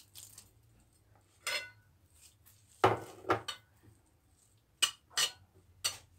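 A spoon clinking and scraping against a large ceramic serving plate as steamed vermicelli is tossed and mixed with salt and water, in short separate strokes that come quicker near the end.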